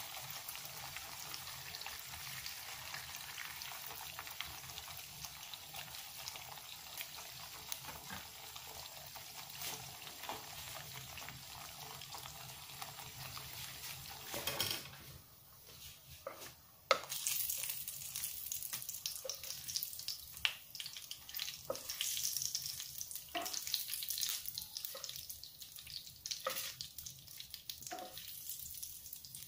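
Slices of lung frying in hot oil in a nonstick pan: a steady sizzle. After a short dip about halfway through, the sizzle is quieter and broken by frequent sharp crackles and pops.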